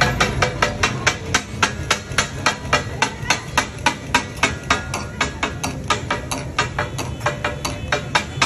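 Two flat steel spatula-blades chopping kata-kat on a large flat iron griddle (tawa): a fast, rhythmic metallic clatter of about four strikes a second, some louder than others, each with a short ring.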